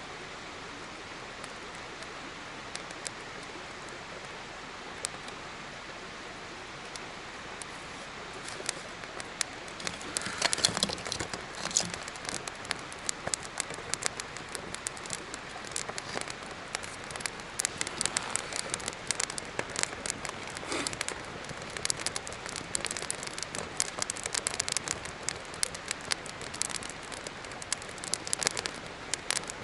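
Campfire catching: a steady hiss, then from about nine seconds in the burning wood starts to crackle and pop, the snaps coming thick and fast.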